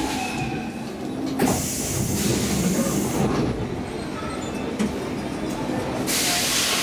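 Inside a Stockholm Metro C15 train standing at a platform: a steady low rumble from the train, with a sharp knock about a second and a half in and two stretches of hissing, the second starting near the end.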